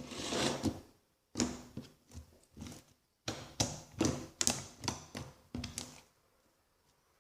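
Freshly activated, still-sticky glue slime being worked, making wet clicks and squelches in a run of short bursts.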